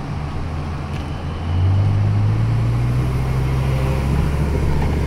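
Motor vehicle engine running while driving. About a second and a half in it gets louder and its note rises slightly as the vehicle accelerates.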